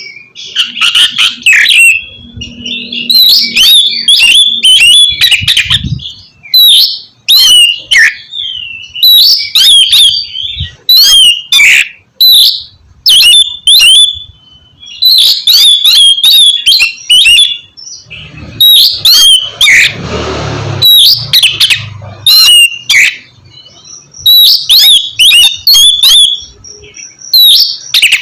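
Oriental magpie-robin (kacer) singing loudly: a rapid run of varied whistled phrases and chattering notes in short bursts, with a harsh rasping call about two-thirds of the way through.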